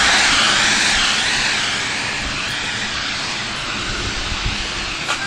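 Rushing noise of a passing vehicle, loud at first and fading away after about two seconds.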